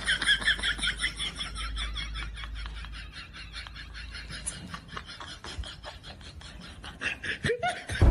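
A monkey chattering: rapid, high-pitched squeaky calls, about five a second, loudest over the first few seconds and then fading.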